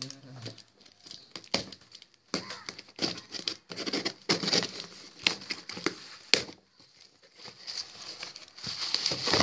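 A cardboard shipping box being opened by hand: irregular scraping, tearing and crackling as a tool slits the packing tape and the cardboard flaps are pulled apart, with sharp clicks in between. Near the end, bubble wrap inside crinkles as it is handled.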